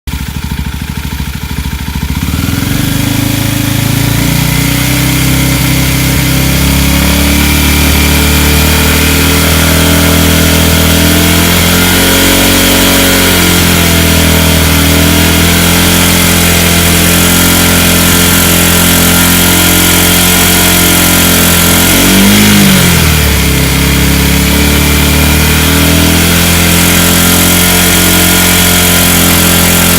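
Vehicle engine held at steady high revs, around 5000 rpm, making a weird noise. The engine note builds up over the first couple of seconds and then stays even, with a brief dip and rise in pitch about two-thirds of the way through.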